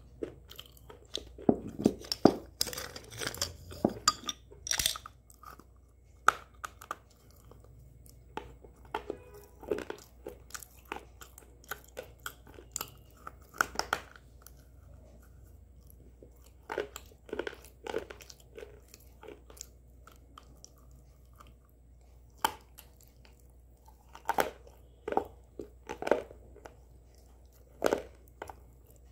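A person biting and chewing something hard and crunchy: sharp, irregular crunches in clusters, with short pauses between bites.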